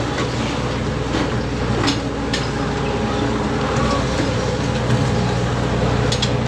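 Steady drone of a ship's engines and machinery, with scattered short knocks and clanks over it.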